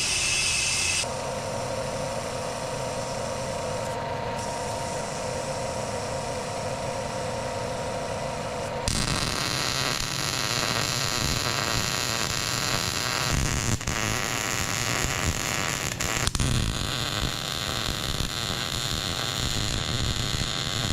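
A short hiss of compressed air at the start, then the steady crackle of a MIG welder laying weld onto a steel air-compressor tank to seal its leaks.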